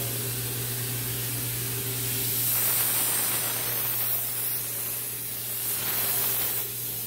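Handheld fogger spraying disinfectant fog: a steady hiss over a low hum, swelling a little about two and a half seconds in.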